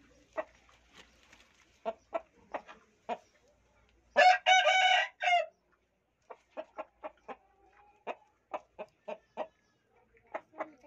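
Aseel rooster clucking in short, separate notes, two to three a second, with one loud crow a little over four seconds in.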